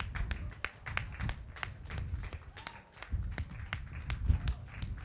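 Scattered clapping from a few spectators: sharp, irregular claps over a low rumble.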